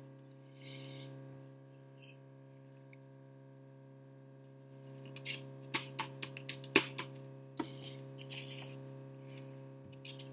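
A refrigerator's steady electric hum, a low drone with fainter higher tones above it. From about five seconds in, a run of short taps and rubs as a glue stick is rubbed on a paper cutout and the paper is pressed down onto a paper plate; the loudest tap comes near the seven-second mark.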